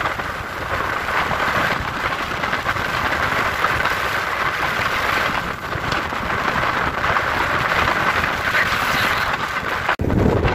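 Steady rushing noise of a vehicle driving along a paved road, with wind and road noise and no clear engine note. It cuts out briefly near the end.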